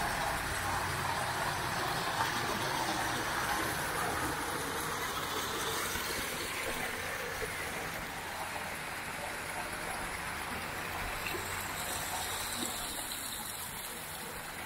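Outdoor street ambience: a steady rushing noise that slowly fades.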